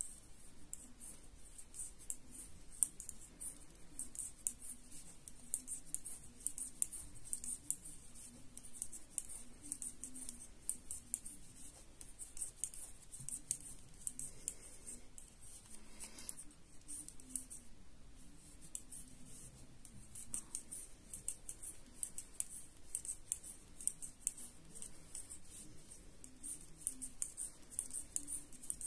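Knitting needles clicking against each other as a row of knit stitches is worked: rapid, irregular light ticks.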